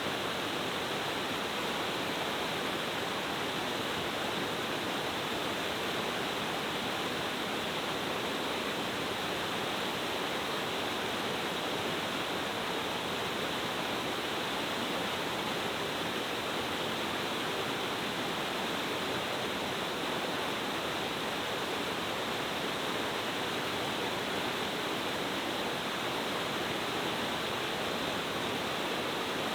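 Steady rush of a powerful multi-tiered cascade waterfall, water pouring down over rock in a mountain stream, even and unbroken.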